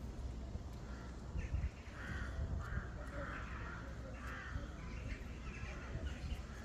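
Crows cawing: a run of about six short, rough caws between one and five seconds in, over a low rumble.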